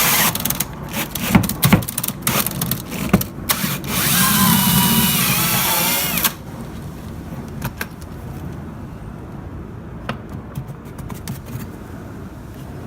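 Power drill turning a 4-inch hole saw into a wall, run in short stop-start bursts and then held for about two seconds with a steady whine, stopping just after six seconds in. A lower steady noise with a few light clicks follows.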